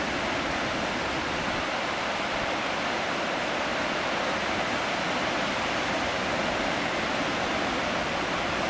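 Marmore Falls, a tall waterfall in full flow: a steady, even rushing of falling water that does not change.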